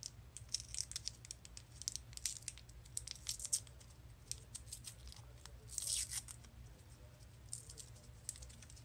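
Crinkling and tearing of the small printed wrapper being peeled by hand off a watercolor half pan. It is a run of quick crackles with one longer tear about six seconds in, over a low steady hum.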